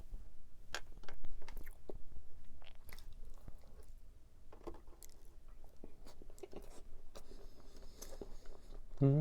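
Close-up chewing and biting of a large pastry tart, with scattered small crackles of crust between the chews.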